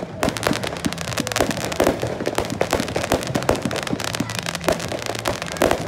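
Fireworks display going off: a dense, irregular run of pops and crackles from bursting shells, with a few sharper bangs standing out.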